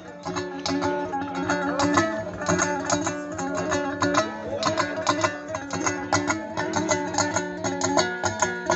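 A two-stringed dombra (do'mbira) is strummed in a fast, even rhythm and amplified through a microphone and loudspeakers. It is an instrumental interlude between the sung verses of a bakhshi's terma.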